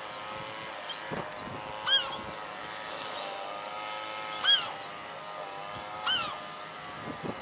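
Herring gull calling: three loud, short, sharp calls a couple of seconds apart, with a few fainter calls between. Under them runs a steady background hum.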